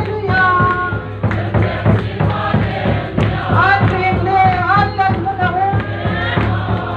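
Crowd singing a hymn together in unison, with a drum beating steadily under the voices.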